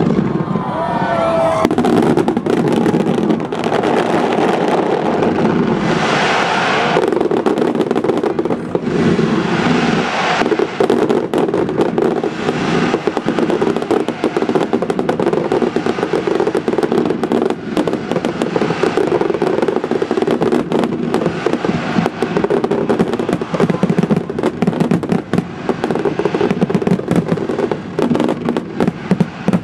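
Sea-launched fireworks display: a continuous, dense barrage of shell bursts and crackling, with a whistling shell gliding in pitch right at the start.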